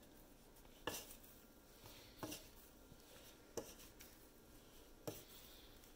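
Wooden spatula scraping sticky risen bread dough off the sides of a mixing bowl: four short, faint scrapes about a second and a half apart.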